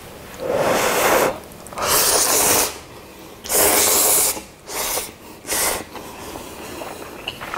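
A man slurping Chapagetti (instant black-bean-sauce noodles) in a series of loud slurps: three long ones of about a second each, then two shorter ones.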